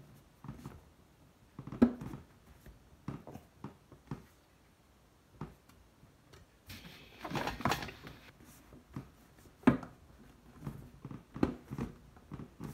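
Sheet-metal stovepipe being pressed and squeezed to close its snap-lock seam: scattered light clicks and knocks of the metal, with about a second of rustling about seven seconds in.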